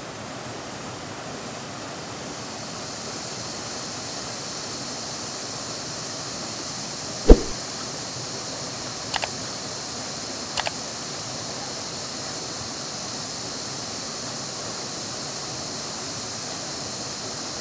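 Steady rush of water from a small waterfall cascading over rocks into a river pool. One loud sharp knock about seven seconds in, then two faint clicks a few seconds later.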